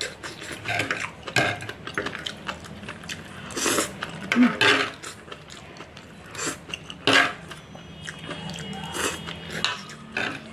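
Steel fork and knife scraping and clinking against a dark baking tray at irregular moments as the last bits of food are gathered up.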